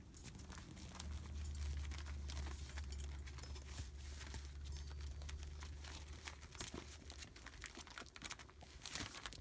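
Newspaper and puppy pads crinkling and rustling under the paws of month-old rough collie puppies moving about, a steady patter of small crackles and clicks. A low rumble sits under it for the first several seconds.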